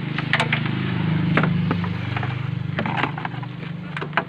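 A car engine running steadily at idle, with sharp clicks and knocks from hands working on parts in the open engine bay.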